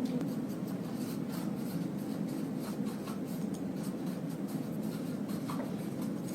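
Classroom background: quick, scratchy writing strokes repeating throughout over a steady low room rumble.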